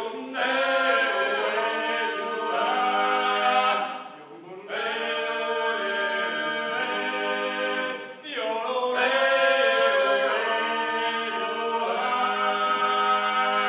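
Voices singing unaccompanied in harmony, in long held chords across three phrases, with short pauses for breath about four and eight seconds in.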